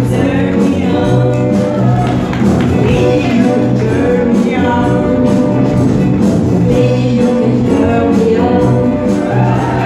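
Live wind band with tubas and brass playing a pop song with a steady beat, a singer's voice carried over the band.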